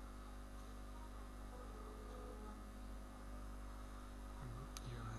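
Steady electrical mains hum in the recording, with one sharp click about four and a half seconds in.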